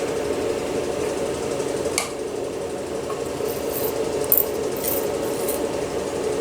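A steady mechanical hum like a small motor running, with a few light clicks and taps, the sharpest about two seconds in.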